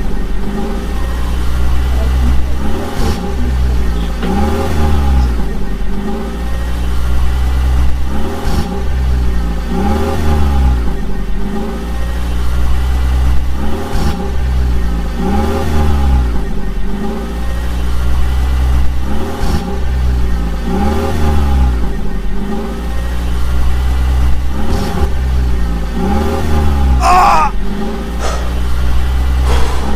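A vehicle engine revving up and falling back in a steady repeating cycle, about once every two seconds, over a constant low drone.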